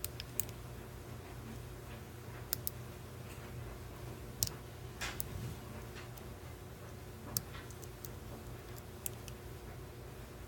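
Small, sharp clicks, about a dozen and irregularly spaced, from a lock pick working the serrated pins of a six-pin Schlage padlock under tension.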